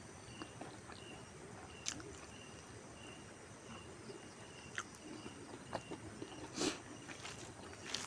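Faint background of evenly repeated short high chirps from an animal, with a few sharp soft clicks.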